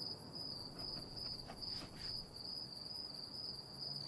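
Crickets chirping, a steady high-pitched pulsing chorus made by males rubbing the edges of their forewings together. The chirp rate is a sign of the air temperature: the warmer it is, the faster they chirp.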